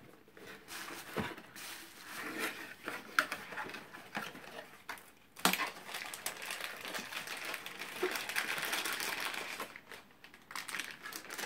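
Cardboard box being opened and handled, its flaps scraping and tapping, then a plastic packing bag crinkling as it is pulled out. There is a single sharp knock about five and a half seconds in.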